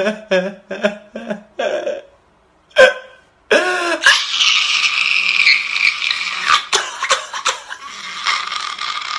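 A man crying loudly: a run of short, sobbing gasps, a short pause and a couple of sharp intakes, then from about four seconds in one long, high-pitched wail.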